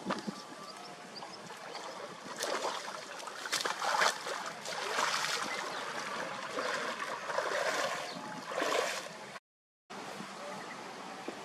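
Shallow muddy canal water splashing and sloshing irregularly around a person's legs as he wades, over the steady sound of the flowing water. A brief total dropout near the end.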